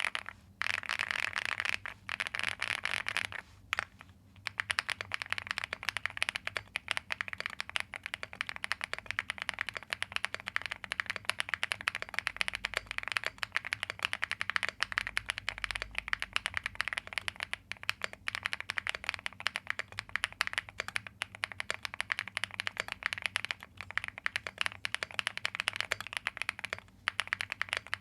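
Fast continuous typing on a mechanical keyboard fitted with Angry Miao Icy Silver Pro factory-lubed linear switches, a rapid run of keystroke clacks with a few short pauses.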